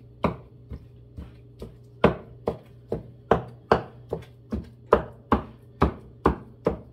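Knife chopping cooked rotisserie chicken dark meat into small chunks, with steady strokes about two to three a second.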